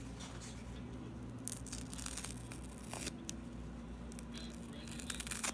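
A foam kitchen sponge with a green scouring layer being torn apart by hand, with crackly ripping. It comes in two spells: one from about a second and a half in to about three seconds, and another near the end.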